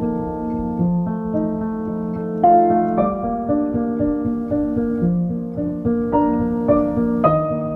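Background music: a piano tune of sustained notes, with new notes struck about twice a second.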